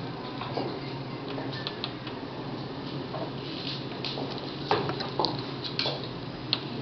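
Faint scattered clicks and ticks of metal pliers and the Hyrax screw's wire arms being handled and bent, with a few sharper clicks about two-thirds of the way in, over a steady low hum.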